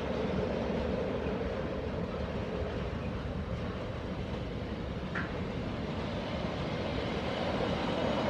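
Freightliner container wagons rolling past on the main line, a steady rumble of wheels on rail.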